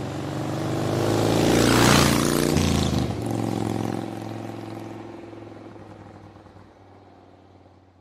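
Logo sting sound effect: a whoosh that swells to a peak about two seconds in, over a low droning tone that then fades out slowly.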